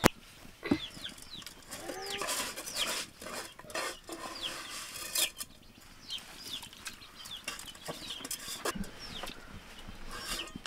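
Chickens clucking, with many short high falling cheeps, and now and then a sharp clink of aluminium pots, lids and plates being handled.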